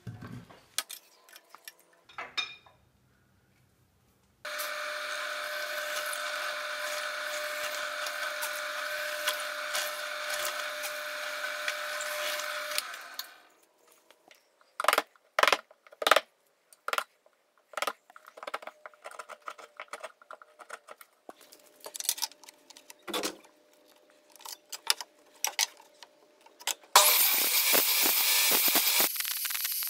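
A power tool runs steadily for about nine seconds, then stops. Scattered knocks and clicks of work on the bench follow, and a loud steady rushing noise starts near the end.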